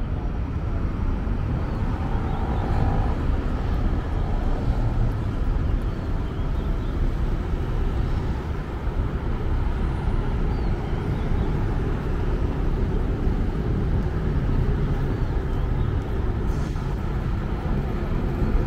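Steady city road traffic from a busy multi-lane roundabout: cars and buses making a continuous low rumble, with no single vehicle standing out.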